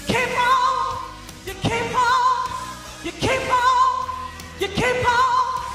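A woman singing a gospel song into a microphone over music: four short phrases about a second and a half apart, each swooping up into a held note with vibrato.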